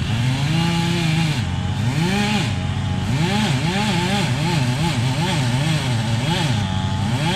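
Stihl chainsaw running hard, its engine pitch swinging up and down about twice a second as the saw is worked in a cut through a big pine.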